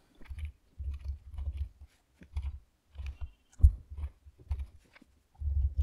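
Typing on a computer keyboard: irregular runs of keystrokes with dull low thuds, as an email address is typed in.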